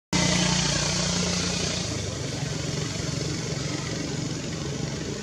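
Steady hum of a motor vehicle engine under a broad hiss, slowly fading.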